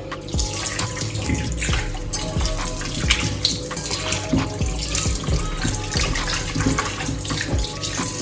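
Tap water running into a kitchen sink while raw chicken gizzards are washed by hand, with irregular splashing throughout.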